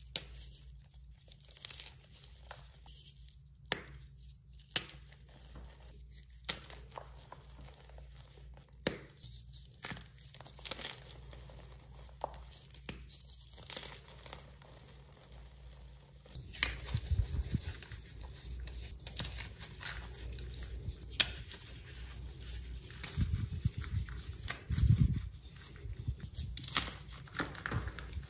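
Blocks of dyed gym chalk crushed and crumbled by hand close to a microphone. At first come scattered sharp crunches and snaps; a little past halfway it turns into denser, steadier crumbling with soft thuds.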